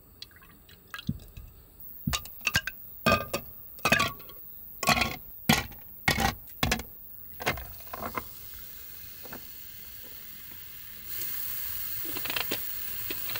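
Ice cubes dropped one by one into a glass tumbler, a run of sharp clinks against the glass. Near the end comes a steady fizz from the carbonated water in the glass.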